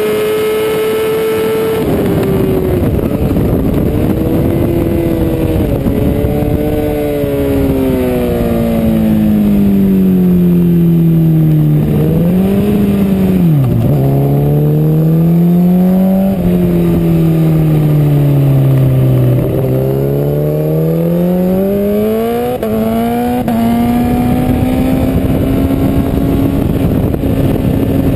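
BMW S1000RR inline-four superstock race engine at racing revs, heard close up from the bike. About two seconds in the revs fall sharply and step down as it brakes and shifts down. They rise and fall through a run of corners, then climb again in quick upshift steps and hold high near the end.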